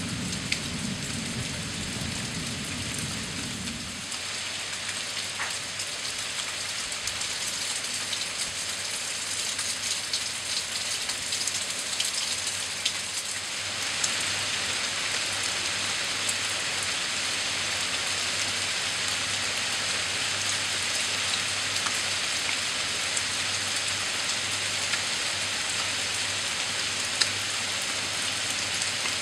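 Steady rain falling on grass and leaves during a thunderstorm, with single drops ticking close by; it grows heavier about halfway through. A low rumble from the tail of a thunder roll fades out about four seconds in.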